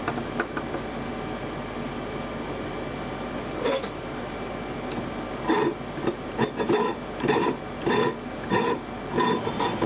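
Hand file rasping across a steel knife blade held in a vise, about two strokes a second from halfway through. Before that, a click and a short clatter as the blade is set in the vise.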